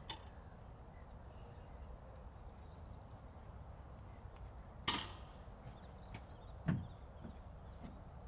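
Small birds singing, a run of quick high chirps that each drop in pitch, over a low steady outdoor rumble. Two sharp knocks, the loudest sounds, come about five seconds in and again under two seconds later.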